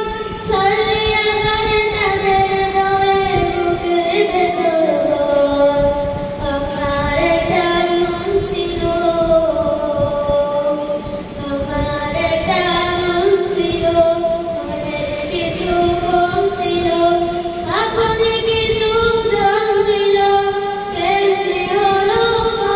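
A young girl singing an Islamic song into a handheld microphone, in long held notes that step up and down in pitch.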